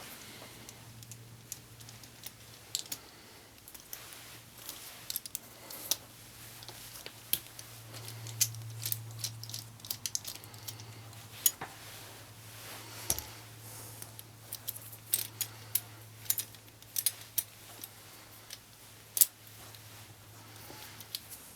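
Irregular small clicks and metallic clinks, as of screws, hardware and tools being handled during a guitar teardown, over a steady low electrical hum.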